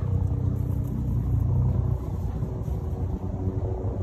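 A motor vehicle's engine running nearby: a steady low rumble with a hum.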